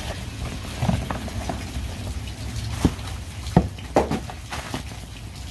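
Cardboard packaging being handled as the knife's retail box is lifted out of its shipping carton, with a few sharp taps and knocks, the clearest about three to four seconds in.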